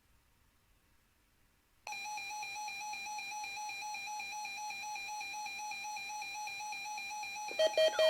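Weather radio alarm for the weekly test of the warning alarm feature. A steady, buzzy electronic tone starts about two seconds in. Near the end a louder alarm tone, pulsing several times a second, joins it.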